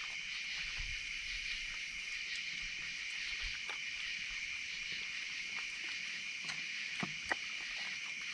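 Steady chorus of night insects, with scattered small clicks and crunches from an opossum chewing food, and a sharper tap about seven seconds in.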